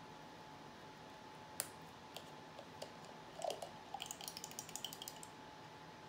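Light clicks and plastic clatter from art supplies being handled on the table: a sharp click, a few small taps, then a quick run of light ticking for about a second near the end.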